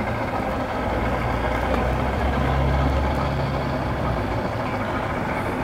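Engine running, its low hum growing louder about a second in and falling back after about four seconds, over a steady wash of background noise.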